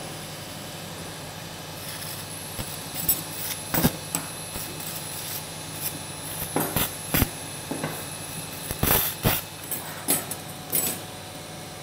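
Steady operating-theatre hum, with a faint high whine coming in about two seconds in. Over it, scattered short clicks and knocks of surgical instruments being handled, more of them in the second half.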